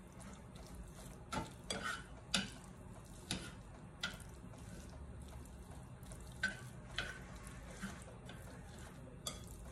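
Chopsticks stirring moist shredded coconut in a metal saucepan, with irregular light clicks and taps against the pan.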